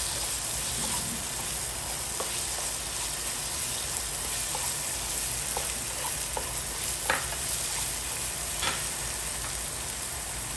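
Diced red and green bell peppers, onion and garlic sizzling steadily in a frying pan while being stirred with a slotted plastic spatula, which taps and scrapes the pan now and then.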